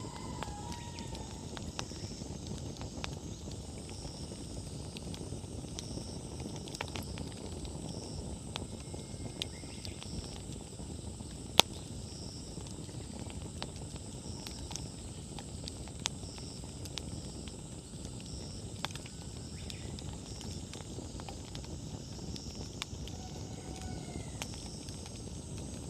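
Wood campfire burning: a steady low rustle of the flames with scattered crackles and one sharp, loud pop about halfway through.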